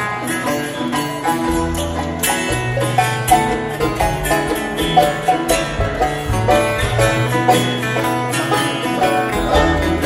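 Live bluegrass-style band playing an instrumental jam, with picked banjo and guitars over an upright bass line, heard through the hall from the audience seats.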